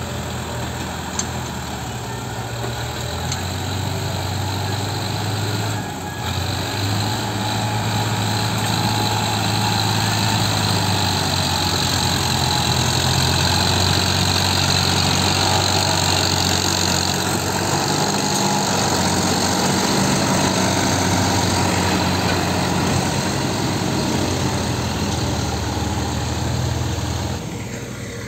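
Diesel tractor engine labouring as it hauls a loaded trolley through deep mud. It is a steady drone that grows louder through the middle and drops away near the end.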